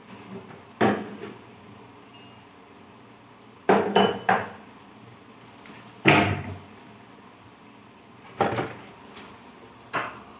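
Kitchenware and a cupboard door knocking and clattering in about five separate bumps as things are put away in a wall cupboard and the door is shut.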